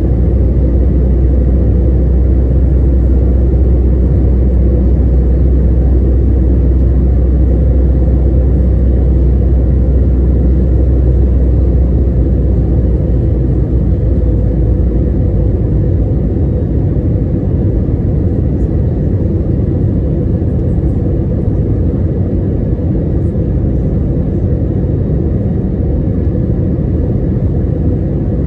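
Steady low rumble of jet airliner cabin noise during descent, engine and airflow heard from a window seat over the wing. The deepest part of the rumble eases about halfway through.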